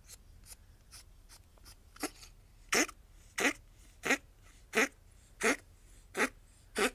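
A ferret coughing in a long run of short, dry hacks, about three every two seconds, faint at first and loud from about two seconds in. The owner hopes the cough is a cold or shed hair caught in the bronchi during the moult, but fears it looks like bronchitis.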